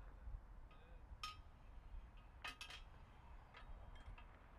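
Near silence with a few faint clinks, one a little over a second in and two close together about halfway through.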